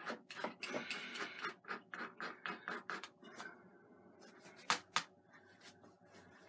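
Oil-paint brush dabbing and scrubbing on canvas: a quick run of short scratchy taps, several a second, for about three seconds. Two sharp clicks follow just before five seconds.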